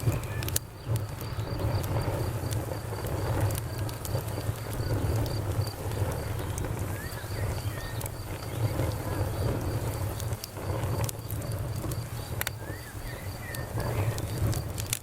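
Campfire wood crackling with scattered sharp pops, over a cricket chirping in an even, rapid high pulse and a steady low rumble.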